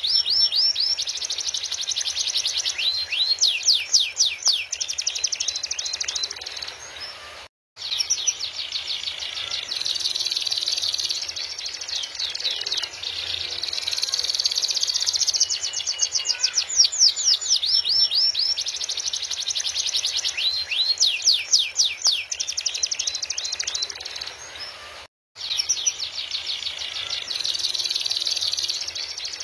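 Domestic canary singing a long, high-pitched song of fast trills and rolls, breaking off abruptly for a split second twice.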